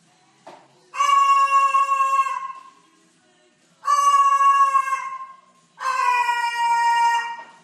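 A white cockatoo giving three long calls, each held for over a second, steady in pitch and sagging slightly at the end.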